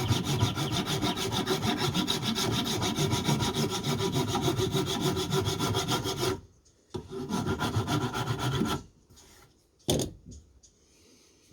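Fast, even rasping strokes on a spotted gum handle, taking wood off it for a snug fit in a maul head. The strokes stop suddenly about six seconds in, start again briefly, and are followed by a single sharp knock near the end.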